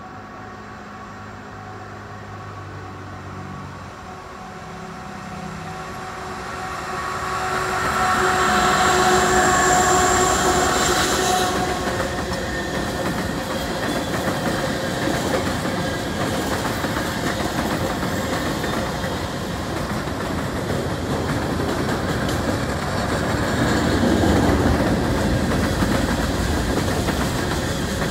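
CN freight train passing: the diesel locomotives' engines grow louder as they approach and pass about eight to eleven seconds in, with several steady tones that stop suddenly, followed by the steady rumble and clickety-clack of freight cars rolling over the rails.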